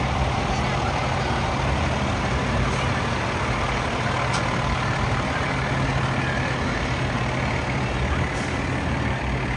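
A large truck's engine running steadily close by, a constant low engine hum over street noise.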